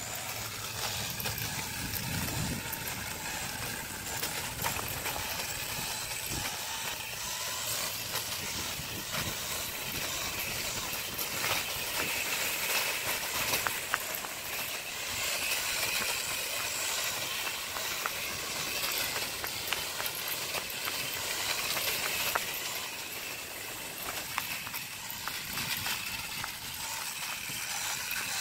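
Steady hiss and rumble of a home-built electric scooter rolling along a concrete road under motor power, its small wheels on the rough surface mixed with wind noise, with scattered small clicks and rattles.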